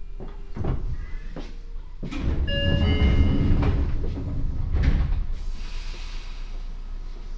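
Seibu 9000 series commuter train making its station stop, heard from inside the car: several clunks, then a louder stretch of knocking with brief squeals in the middle, and a hiss of air about five and a half seconds in, as the sliding doors work.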